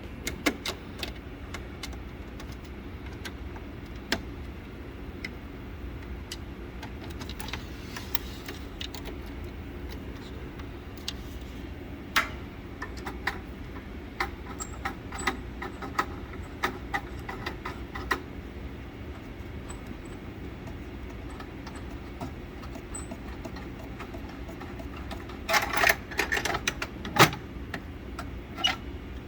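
Clicks, knocks and light metallic rattles of a Christie Roadster projector being opened up by hand to get at its lamp, with a denser burst of rattling handling near the end. A steady low hum runs underneath.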